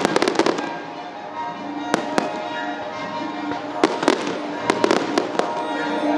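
Fireworks display: shells bursting and crackling in quick clusters of sharp pops, a dense run at the start, a couple about two seconds in and more between four and five and a half seconds. Music accompanies them throughout.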